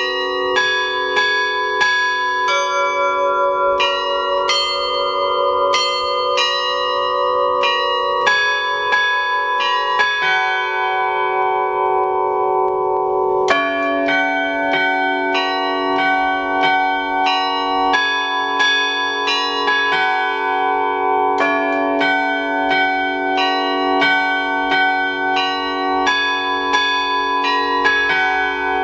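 Bells ringing in a quick, continuous sequence of different pitches, each stroke ringing on under the next. About halfway through the strokes thin out and the ringing dies down for a moment, then a new round starts with a strong stroke.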